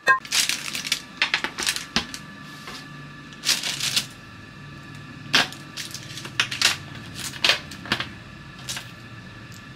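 Crisp, freshly baked bread sticks handled on a parchment-lined baking tray: irregular dry clicks and crackles as the hard toasted sticks are picked up, knocked together and set down on the paper, in clusters.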